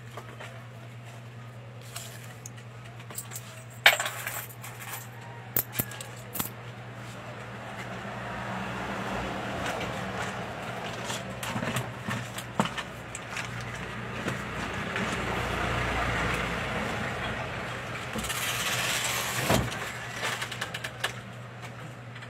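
Clinks, taps and rattles of packaged goods and small items being handled and shelved, over a steady low hum. A sharp click about four seconds in is the loudest single sound, and a broad rushing noise swells and fades through the middle.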